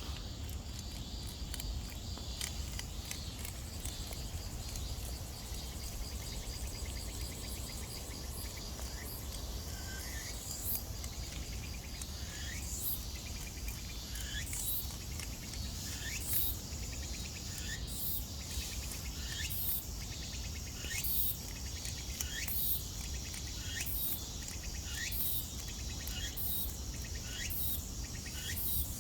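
Summer insects calling outdoors: a steady high trill runs throughout. About ten seconds in, a short rising call starts repeating roughly every second and a half. A low rumble sits underneath.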